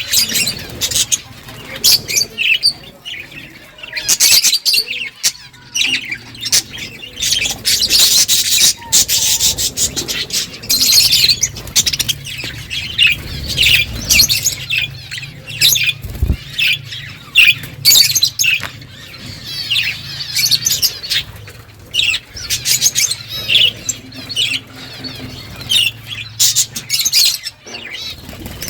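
Budgerigars chirping and chattering in rapid, high-pitched calls without a break.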